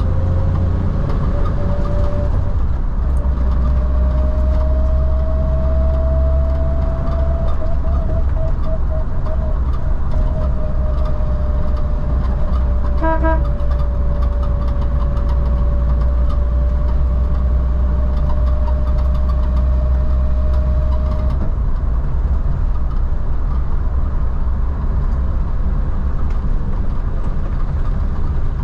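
1952 Willys Wagon driving: a steady low engine drone with a whine that slowly rises and falls in pitch, the whine dropping away about three-quarters of the way through. A brief higher tone sounds about halfway through.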